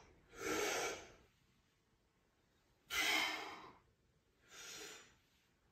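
A man breathing hard in time with overhead dumbbell shoulder presses. There are three breaths: one near the start, a louder one that starts sharply about three seconds in, and a softer one near the end.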